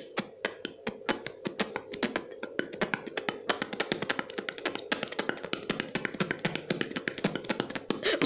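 Beatboxing: a fast run of sharp mouth clicks and pops, getting denser and quicker from about three seconds in.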